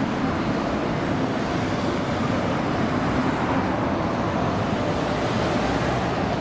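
Steady city street noise dominated by passing road traffic, an even rush with no single event standing out.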